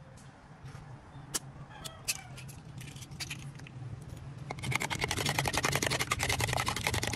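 Metal spoon beating a raw egg in a plastic tub, a fast clatter of strokes starting about four and a half seconds in that is the loudest sound. Before it, a couple of sharp taps as the egg is cracked with a knife.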